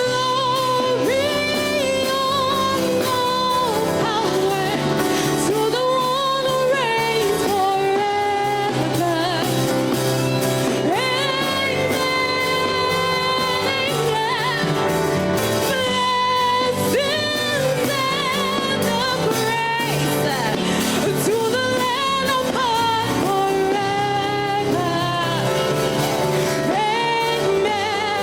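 Worship song: singing with long, wavering held notes over steady instrumental accompaniment.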